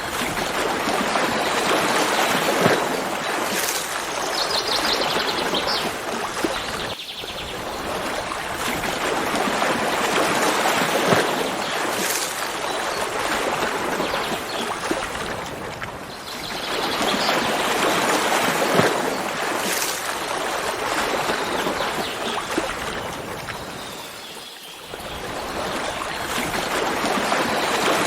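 Running water of a stream, a steady rushing that swells and fades about every eight seconds. A bird gives a short rapid trill of high notes about four to six seconds in.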